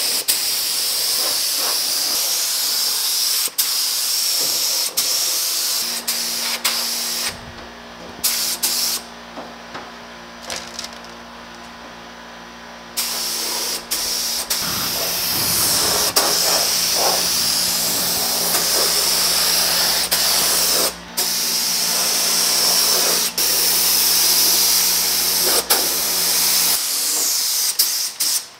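Gravity-feed air spray gun hissing in long passes as primer is sprayed, cutting out for a few seconds twice as the trigger is let off, around eight and ten seconds in. A steady low hum runs underneath from about six seconds in until shortly before the end.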